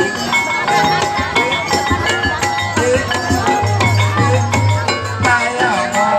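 Loud, continuous traditional Indonesian dance music, with drums and percussion under a wavering melodic line.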